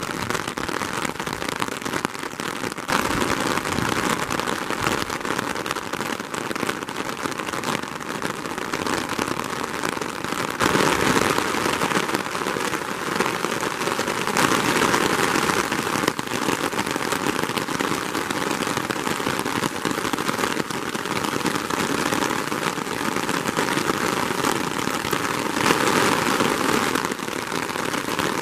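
Steady rain falling, the drops pattering on an umbrella canopy overhead as a dense crackle; the rain grows heavier about ten seconds in.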